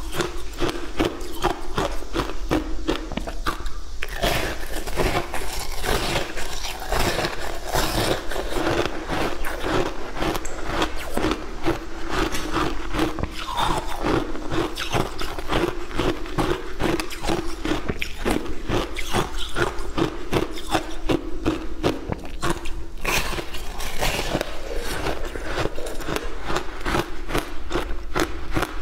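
Close-miked crunching and chewing of frozen shaved ice dipped in passion fruit juice: a dense, continuous crackle of bites and crunches.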